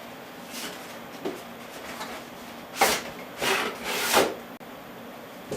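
Cardboard box of an MSI GTX 770 graphics card being slid and handled, with three short scraping rubs in the second half, the last the longest.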